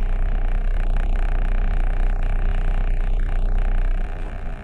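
A vehicle engine running with a steady low rumble, heard from inside the cab; it eases slightly about four seconds in.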